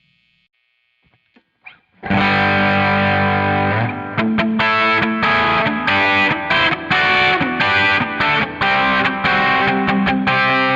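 Electric guitar played through a Zoom G5n multi-effects processor on a distorted patch. A few faint string clicks come first. About two seconds in, a loud chord rings out, followed by a run of chords cut off by short stops.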